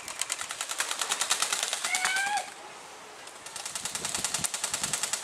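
Airsoft guns firing rapid full-auto bursts: a long string of fast, even pellet shots, a pause of about a second, then another long burst.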